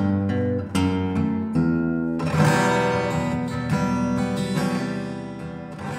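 Acoustic guitar music: plucked notes, then a strummed chord a little over two seconds in that is left ringing and slowly dies away.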